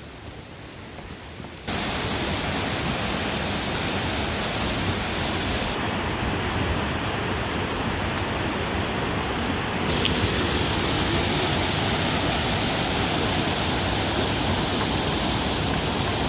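Mountain waterfall pouring: a loud, steady rush of falling water that starts abruptly about two seconds in and turns brighter and a little louder about ten seconds in.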